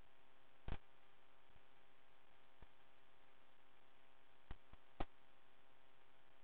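Faint steady electrical hum on the cockpit radio and intercom audio feed, made of several fixed tones. A few brief clicks break it, the loudest about five seconds in.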